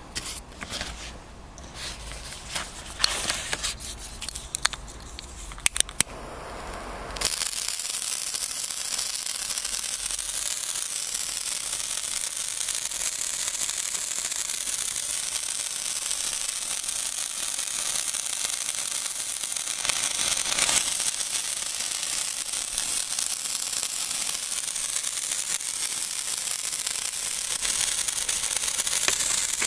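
A sparkler is drawn out of its paper package with rustling and a few sharp clicks, then about seven seconds in an old Moog Nico colored sparkler ("Zauberstab Extra Bunt") catches and burns with a steady, dense hissing crackle, an odd crackling tone typical of these old sparklers.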